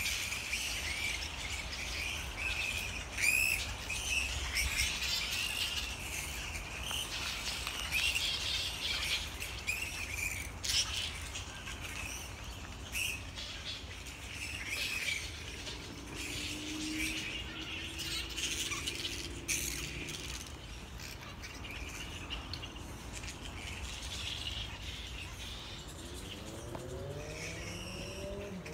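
A colony of grey-headed flying foxes calling: a constant chatter of high screeches and chirps from the roosting bats, with a few louder sharp calls about three seconds in.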